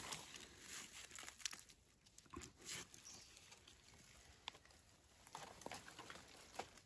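Faint, scattered rustling and crackling of dry leaves and twigs, with a few sharp clicks.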